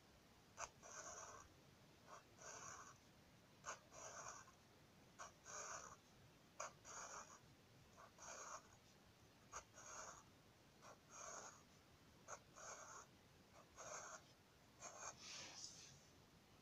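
Black felt-tip marker drawing short lines on paper, faint: about a dozen strokes, each often starting with a tap of the tip followed by a brief scratch, roughly one every second or so.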